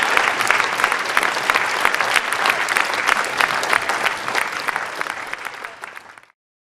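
Audience applauding, a dense patter of many hands clapping that fades away and cuts off abruptly near the end.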